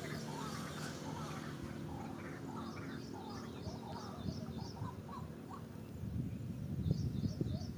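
Birds chirping: many short, quick calls, with a separate series of thin, high notes about two and a half seconds in and again near the end. A low rumbling noise rises under them in the last couple of seconds.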